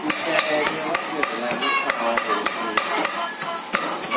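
Heavy cleavers mincing goat meat and cartilage on a thick wooden chopping block. The strokes are rapid and uneven, about four or five sharp chops a second.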